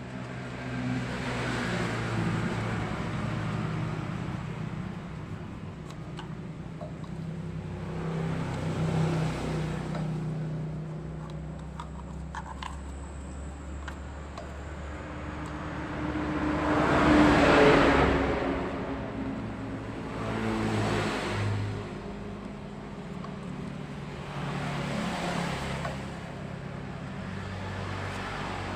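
Road traffic going by: several vehicles pass one after another, each swelling and fading over a low steady hum, the loudest just past halfway.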